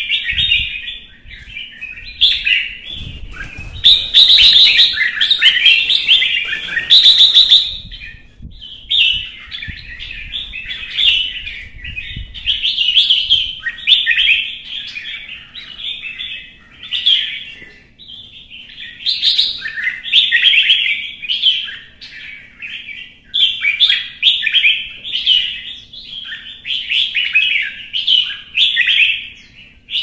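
Red-whiskered bulbul singing a long run of loud, rapid warbling phrases with short breaks, louder and denser for a few seconds about four seconds in. This is its fired-up fighting song.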